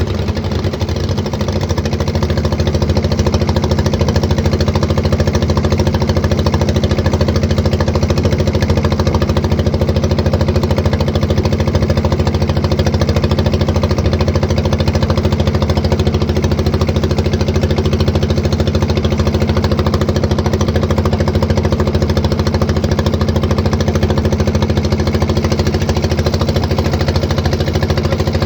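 Boat engine running steadily under way, loud and close, with a fast, even knocking beat.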